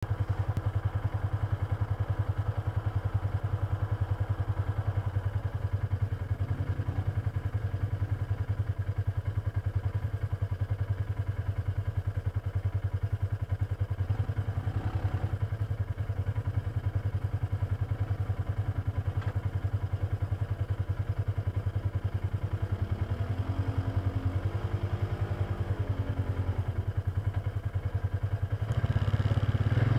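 Polaris Ranger side-by-side engine running steadily while driving, its revs rising and falling a few times, and louder near the end.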